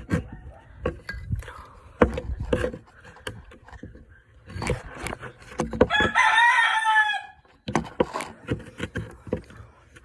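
A rooster crows once about six seconds in, a single call of just over a second. Scattered knocks and clatter of handling are heard around it.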